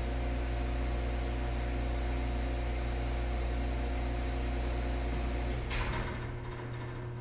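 Hobart dishwasher's pump motor humming steadily, then shutting off with a short noisy clunk about six seconds in.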